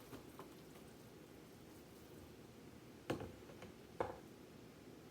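Two short knocks about a second apart, a kitchen utensil striking dishware as dressing is spooned into a baking pan, with a few faint ticks over a quiet background.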